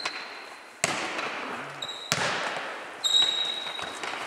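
A football kicked and bouncing on a wooden sports hall floor in a foot tennis rally: three sharp thuds about a second apart, each with a long echo in the hall. A thin high tone is heard after the second and third thuds.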